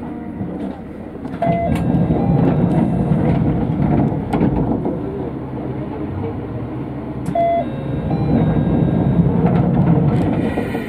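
Diesel railcar engine running, growing louder about a second and a half in as the railcar starts to pull away from the station, with a few short beeps and light clicks.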